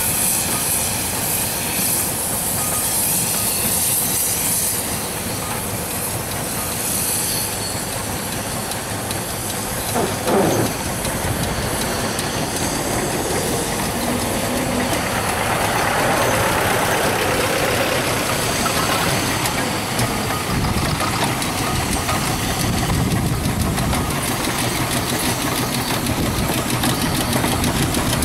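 A steam road engine running, with steam hissing; the high hiss is strongest in the first few seconds. A short louder sound comes about ten seconds in.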